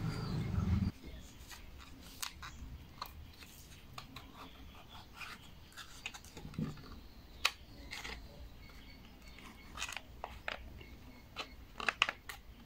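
Small parts of a 3D-printed turntable clicking and tapping as red plastic pieces are fitted into its base among hex nuts and bolts, in scattered sharp clicks that come more often near the end. A louder steady sound cuts off abruptly about a second in.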